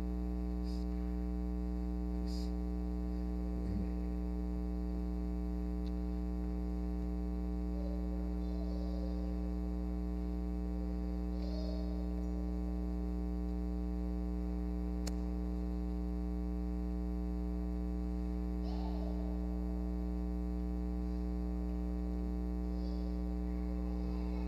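Steady electrical mains hum, with a few faint, scattered murmurs of people quietly greeting one another.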